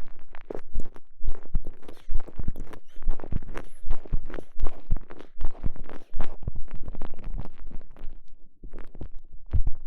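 Soft elastomer TENGA Egg sleeve squeezed and rubbed around a microphone pushed inside it: a dense, irregular run of squishing and rubbing noises with heavy low thumps, right on the mic.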